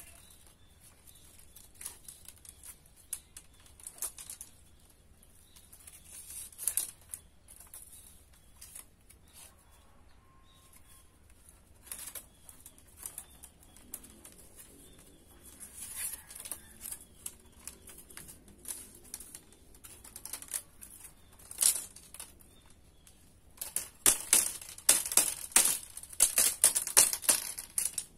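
Split bamboo strips being handled and woven by hand: scattered dry clicks and rustles, then a dense run of rapid, louder clicks and taps near the end.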